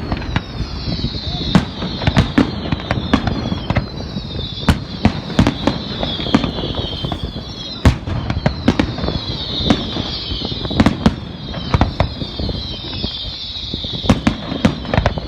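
Fireworks display: a dense run of sharp bangs and crackles, overlaid with high whistles that fall in pitch one after another.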